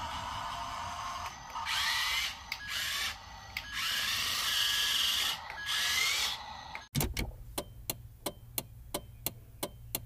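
Small electric motors of a toy RC dump truck whirring in several short bursts, the whine rising in pitch as they spin up. About seven seconds in the sound cuts off abruptly and gives way to a steady ticking of about three clicks a second.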